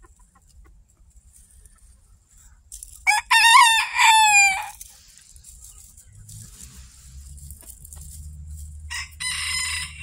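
A bantam rooster crowing once, about three seconds in: a loud, high-pitched crow of a few quick notes ending in a long falling note. A shorter, quieter chicken call follows near the end.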